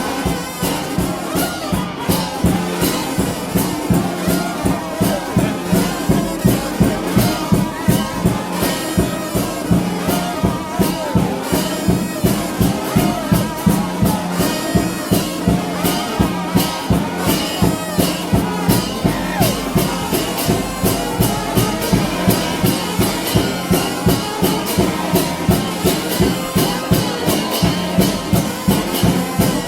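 Gospel shout band music: brass horns holding a dense low chord over a fast, steady drum beat.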